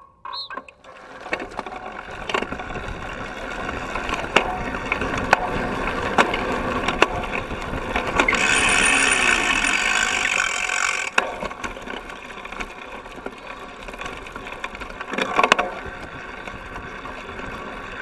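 Cyclocross bike ridden off the start line and along a dirt and grass course, heard from a camera on its seat stay. The tyres roll noisily over the ground and the chain and frame rattle, with sharp knocks over bumps. The noise swells louder for a few seconds in the middle.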